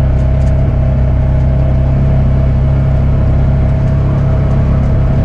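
Polaris RZR 570 side-by-side's single-cylinder engine running at a steady pitch, with a constant whine over the low hum.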